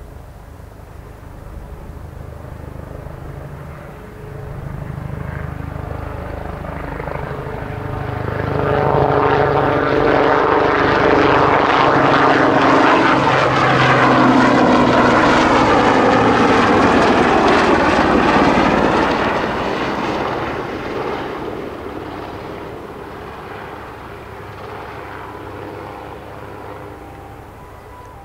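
Sikorsky S-76C+ helicopter, with twin turboshaft engines, flying past. Its rotor and turbine sound grows louder, is loudest for about ten seconds in the middle as it passes close, with tones falling in pitch, then fades as it moves away.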